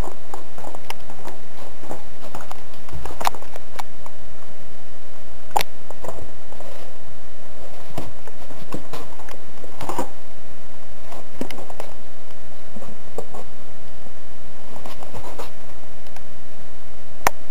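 Handling noise: scattered, irregular clicks and knocks over a steady mid-pitched hum, with a sharper knock near the end.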